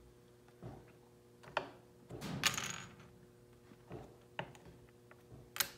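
Wooden tee-shaped pegs of a triangle peg-jumping board game clicking against the wooden board and the table top as they are jumped, pulled out and dropped: scattered light taps, with a short clattering rattle about two and a half seconds in.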